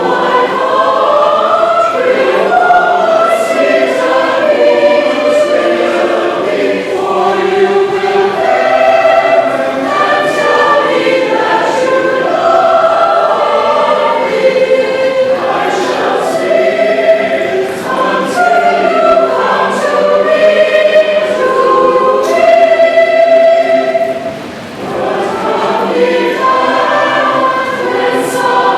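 A choir singing, several voices together in sustained lines, with a brief drop in loudness about three-quarters of the way through.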